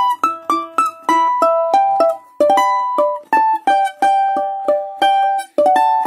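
Balalaika plucked in a steady run of single notes and two-note chord tones, about three a second, each ringing and dying away, as the chord is played around a long melody note.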